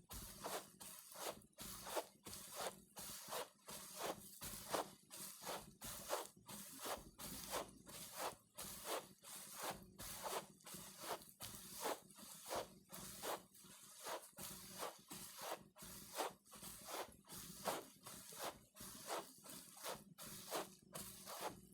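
Footsteps walking on carpet at an even pace, about two soft, muffled steps a second.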